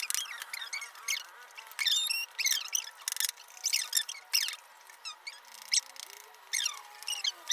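Sped-up, very high-pitched chipmunk-like voices: quick squeaky chatter with scattered clicks and no low end.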